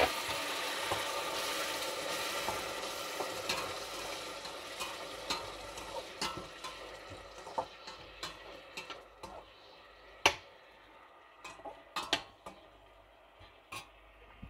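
Chicken, corn and spices frying in butter and oil in a stainless steel pot, sizzling while a metal slotted spatula stirs and clinks against the pot. The sizzle dies down over the first several seconds, leaving scattered clinks and taps of the spatula, the loudest about ten seconds in.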